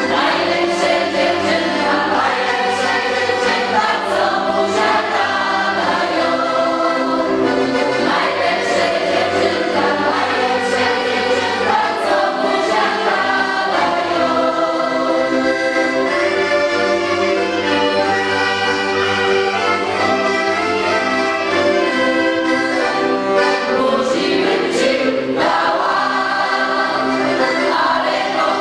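Polish folk ensemble performing a folk song: a mostly women's choir sings in chorus, accompanied by a small folk band with accordion, clarinet and double bass. The singing carries on without a break.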